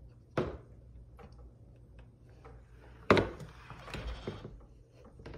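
Glass-paned door and its handle knocking and clicking as the door is pushed to and the latch is worked: one sharp knock about half a second in, a louder one about three seconds in, and lighter clicks between and after.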